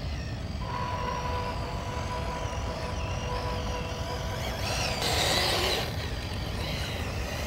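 Electric motor and gear whine of a 1/12-scale RC rock crawler, a steady thin hum over a low rumble, with a louder rushing noise lasting about a second, about five seconds in.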